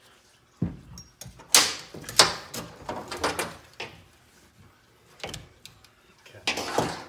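Hand tools and metal transmission parts being handled on a metal workbench: a string of irregular clanks and scrapes. The loudest come about a second and a half to two and a half seconds in, and another just before the end.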